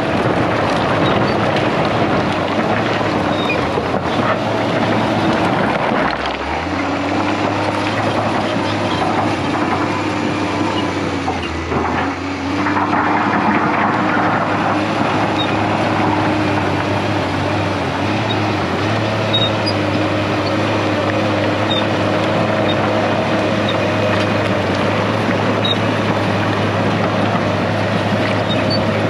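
Case crawler dozer's diesel engine running under load as it pushes rock and rubble, with a steady hum and a noisy haze of the work over it. The engine note dips and shifts twice, about six and twelve seconds in.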